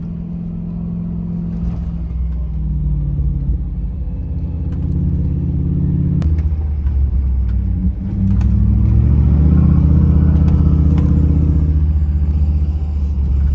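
Off-road vehicle's engine running under load, then revving harder about eight seconds in, its pitch climbing and staying loud.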